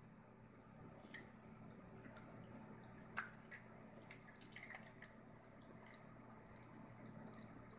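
Cavalier King Charles Spaniel chewing on a plastic clothes hanger: faint, irregular clicks of its teeth on the plastic.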